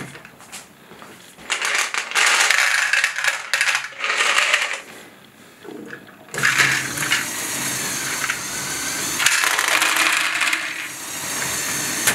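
Small plastic balls clatter into a LEGO train wagon for a few seconds. About six seconds in, the train's single Power Functions motor starts whirring steadily, driving the train and its geared wheels along the track into the GBC module.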